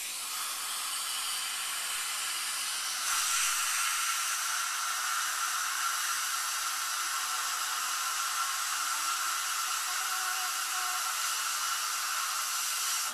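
Dental high-volume suction hissing steadily with a thin whistle while the air-water syringe rinses acid etch gel off a molar. It gets louder about three seconds in.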